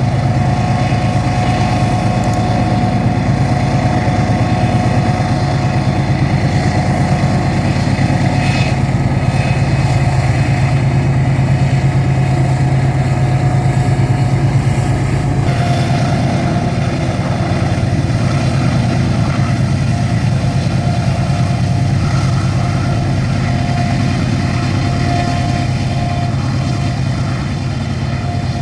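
GE diesel-electric freight locomotives (ES44ACi and AC44i) working under power: a steady, deep engine rumble with a held mid-pitched tone above it. The sound shifts about halfway through.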